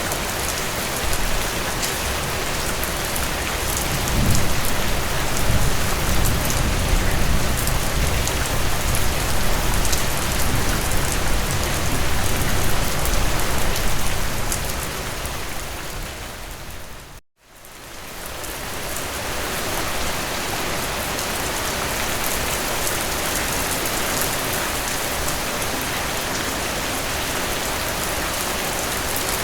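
Steady, dense rain falling on a surface, with a long low rumble underneath for several seconds early on. Just past halfway the sound fades out to a moment of silence and fades back in.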